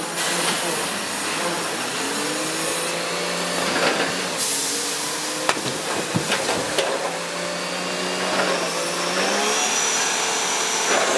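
A heavy wheeled log stacker's engine running and shifting in pitch as it works, with a hissing splash of logs dropped into water partway through.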